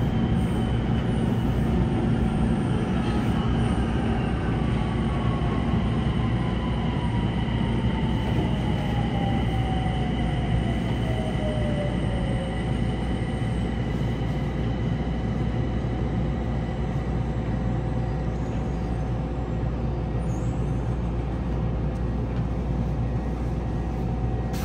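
Mitsubishi hybrid SiC VVVF inverter of a Yokohama Blue Line 4000 series subway car whining with a steadily falling pitch under electric braking as the train slows into a station, over the rumble of the car. About halfway the whine fades out, leaving a steady hum as the train draws to a stop.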